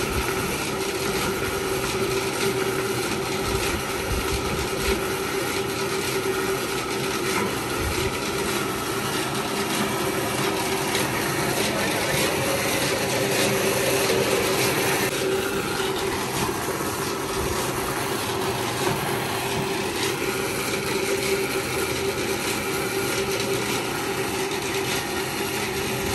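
Swollen river water rushing and churning past the bank, a steady noise, with a steady hum running under it.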